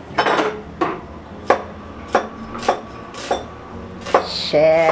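Kitchen knife chopping onions on a cutting board: single sharp knocks at an even pace, about one every half second or so.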